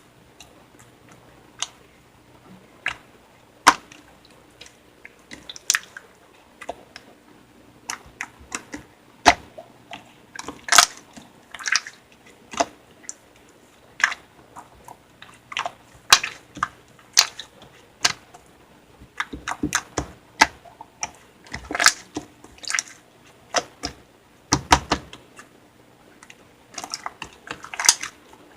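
Slime being squished and pressed by hand, making irregular wet clicks and pops, some coming in quick clusters.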